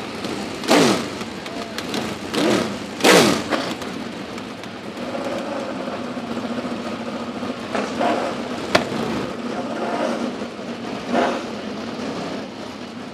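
Vehicle engines revving in short bursts, each dropping in pitch, three times in the first few seconds and twice more later. A steady engine drone runs underneath, and there is one sharp click.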